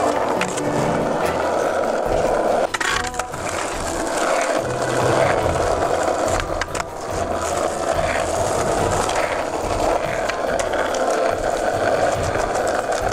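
Skateboard wheels rolling over asphalt with a steady rough roll. Sharp clacks of the board popping and landing cut in a few times, clearly about three seconds in and again near seven seconds.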